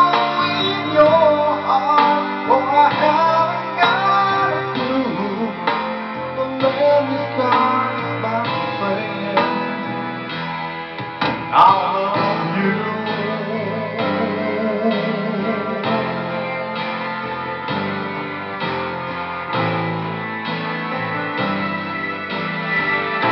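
A man singing into a microphone over instrumental accompaniment; in the second half the voice drops out, leaving the accompaniment playing.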